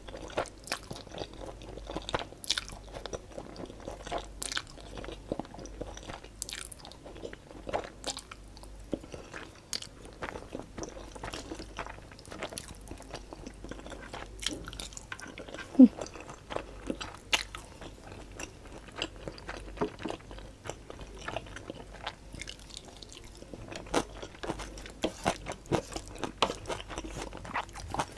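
Close-miked mukbang eating sounds: chewing and slurping Samyang jjajang (black bean) instant noodles and fried egg, with many wet mouth clicks and smacks. One louder short sound stands out a little past halfway.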